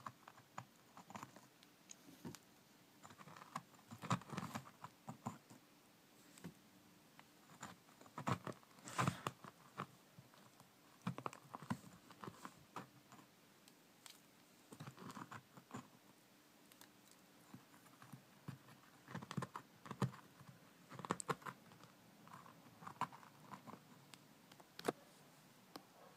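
Metal utensil scraping and digging into crumbly fungus-bed substrate in a plastic tub: scattered soft clicks, scratches and crumbling taps at an irregular pace, heaviest in a few short clusters.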